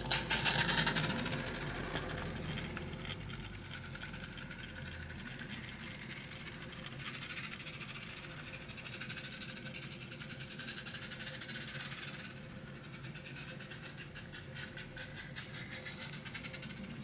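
A Roundhouse Billy 16mm-scale live-steam locomotive running on garden railway track: a steady hiss of steam with the light rattle of its wheels on the rails. There is a loud burst of noise in the first second.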